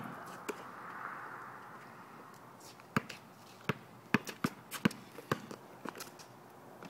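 A basketball bouncing on an outdoor court: a string of sharp, uneven bounces that starts about three seconds in.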